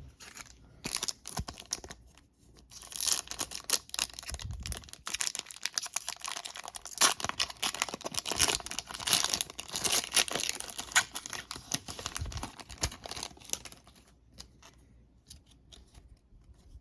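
Foil wrapper of a 2021 Panini Donruss football retail pack being torn open and crinkled: dense crackling from about three seconds in until about fourteen seconds, then only a few faint ticks.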